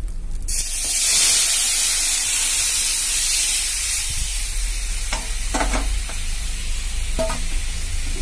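Boiled bottle gourd and moong dal poured into hot tempering oil in a kadai. It bursts into a loud sizzle about half a second in and keeps sizzling steadily.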